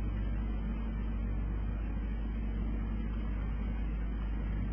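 Steady low hum with a constant hiss: the background noise of a sermon recording, with no voice.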